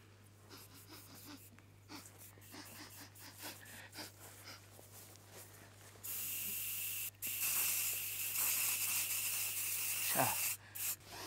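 Aerosol spray can sprayed in a loud hiss that starts about six seconds in, breaks off briefly after about a second, then runs on for about three more seconds before stopping.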